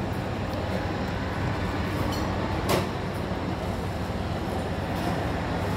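Steady background din of a large shopping-mall atrium: a low hum under an even wash of noise. A single sharp clink stands out about two and a half seconds in.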